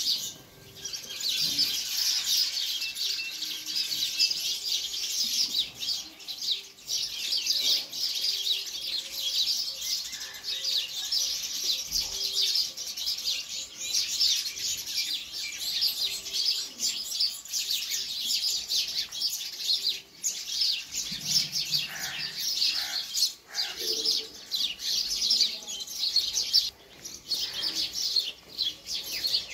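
A colony of house sparrows chirping continuously, many birds calling over one another.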